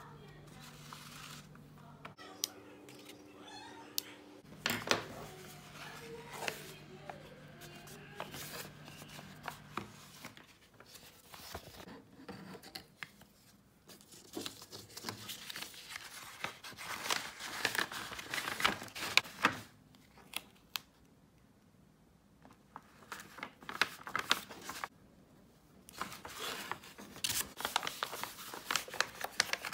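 Kraft paper envelopes and packing paper rustling and crinkling as they are handled and folded, with scattered taps and clicks and a couple of quieter pauses. A low steady hum sits under the first third.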